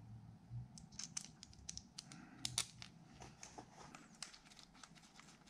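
Light, scattered metallic clicks and clinks of a socket and extension being handled and fitted, the sharpest about two and a half seconds in.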